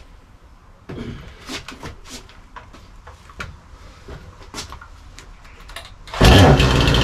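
A Kingfisher FPCSP46-2 46cc two-stroke petrol chainsaw being pull-started from cold: a few knocks and rasps of the starter cord being pulled, then about six seconds in the engine catches and runs loudly.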